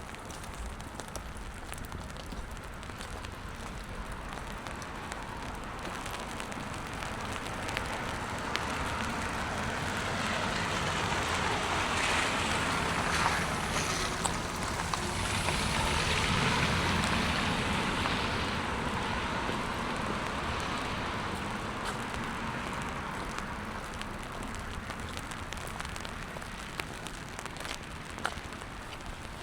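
A vehicle passing on a wet road: tyres hissing on the wet surface, swelling to a peak about halfway through and fading away over several seconds. Light rain patters steadily underneath.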